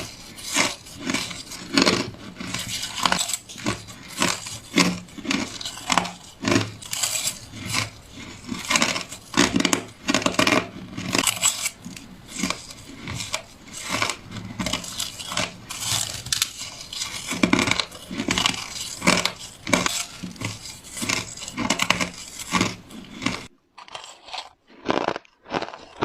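A person biting into crushed ice: an irregular run of sharp, crackly crunches, several a second. Near the end the background hiss drops away and the crunches stand apart.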